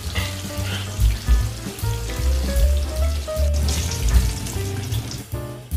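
Cornstarch-coated short mackerel deep-frying in a wok of hot oil, sizzling steadily. Background music with a heavy bass runs under it.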